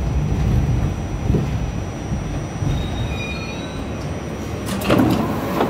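New York subway train slowing into a station: the rumble of the wheels fades, with a few faint high wheel squeals about three seconds in. Near the end there is a short, loud burst of noise as the train comes almost to a stop.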